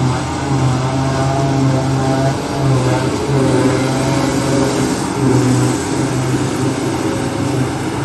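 John Deere 7450i self-propelled forage harvester running under load as it chops grass and blows it into a silage wagon, with the tractor pulling the wagon running alongside. A loud, steady low drone with wavering whining tones above it as the machines pass close by.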